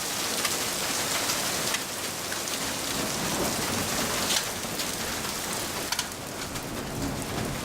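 Heavy rain falling steadily, with sharp drop ticks close by, during a thunderstorm; a low rumble of thunder builds near the end.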